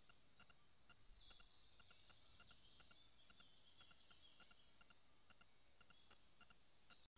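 Near silence from a trail camera's microphone: faint hiss with soft regular ticking, and faint high-pitched chirping for a few seconds starting about a second in. The sound drops out briefly just before the end.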